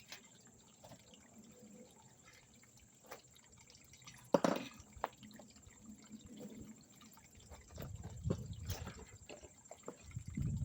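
Pond waterfall trickling and dripping, with small clicks, one sharp knock about four seconds in, and low rumbling building near the end.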